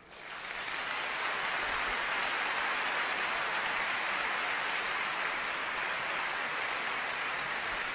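Audience applauding, swelling up in the first second and then holding steady.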